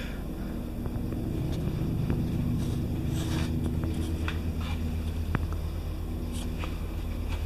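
A steady low machine hum, with a few soft footstep scuffs and one sharp click a little past halfway.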